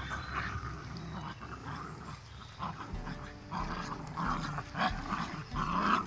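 Two small dogs growling at each other in play as they tug a stick between them, in repeated short bursts.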